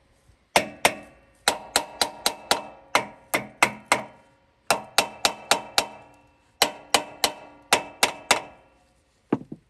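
Hammer blows on the steel wheel hub of a Nissan forklift, metal on metal with a short ring after each strike, about two dozen in quick runs of four to seven with short pauses between, and one last blow near the end. The hammering is part of freeing a wheel whose brake has seized.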